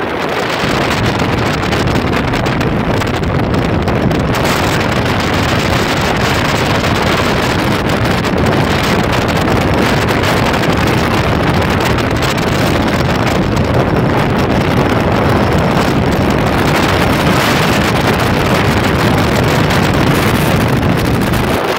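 Bass boat running fast across a lake: steady wind buffeting the microphone over the drone of its outboard motor.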